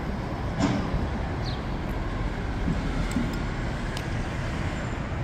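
Downtown street ambience: a steady rumble of road traffic, with a single sharp knock about half a second in and a few faint clicks later.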